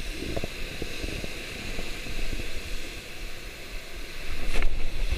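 Wind rumbling on the camera microphone over the wash of sea surf on rocks, a steady rushing hiss that swells louder about four seconds in, with a brief click as it swells.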